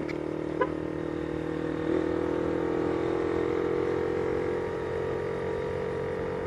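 Motorcycle engine running steadily on the move, with road and wind noise; it picks up a little about two seconds in.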